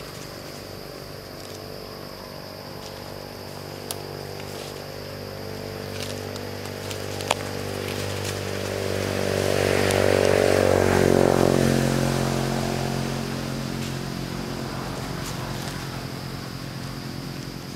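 A motor vehicle's engine passing, growing louder to a peak about ten to twelve seconds in and then fading away. A sharp click comes about seven seconds in.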